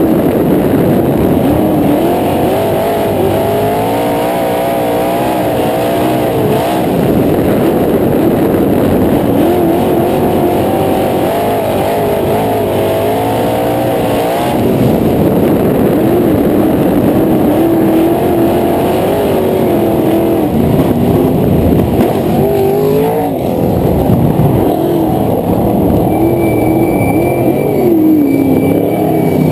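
Onboard sound of a dirt-track sprint car's engine running loud, its pitch rising and falling again and again through the laps.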